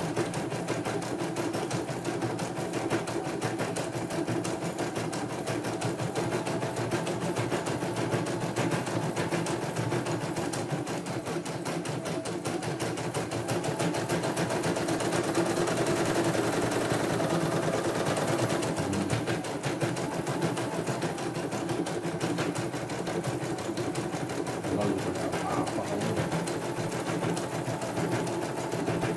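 CNY E900 computerized embroidery machine stitching a design, its needle running in a fast, steady rhythm as the hoop moves: a test run after the upper thread tension has been set.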